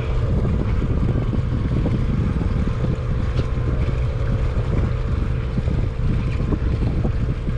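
Steady low drone of the party boat's running machinery, with wind buffeting the microphone.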